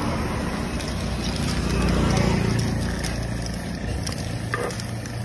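A motor vehicle engine running with a low, steady rumble that swells about two seconds in and then eases, with voices in the background.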